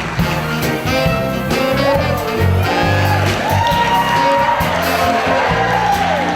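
Band playing upbeat jazzy music, with long notes that slide up and down over it from about halfway in.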